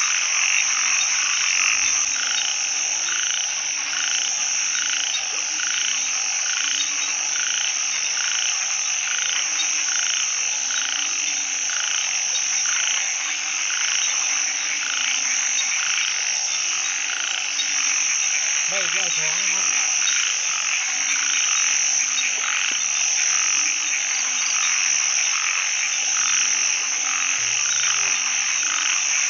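Chorus of calling narrow-mouthed frogs (อึ่ง) at night: short low notes repeating irregularly, among higher pulsed calls coming about twice a second, over a steady high-pitched drone.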